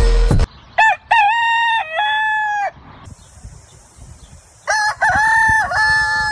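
A rooster crowing twice. Each crow is a multi-part cock-a-doodle-doo lasting about two seconds, the second starting about two seconds after the first ends. A steady high hiss runs under the second crow, and loud music cuts off just after the start.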